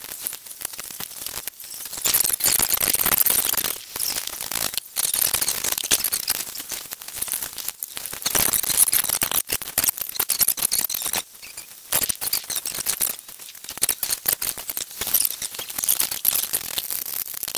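Gloved hands working plastic vacuum hoses, wiring and connectors in a car's engine bay: a continual rustling and scraping of plastic with many small clicks, loudest in two stretches a couple of seconds long.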